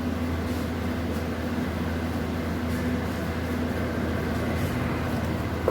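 Steady low mechanical hum with a faint hiss, unchanging throughout, with a few faint soft scrapes on top.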